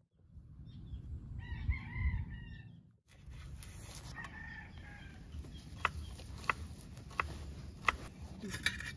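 A rooster crowing: one drawn-out crow about a second and a half in, then a fainter crow a few seconds later. Near the end, a run of sharp clicks, roughly one every two-thirds of a second.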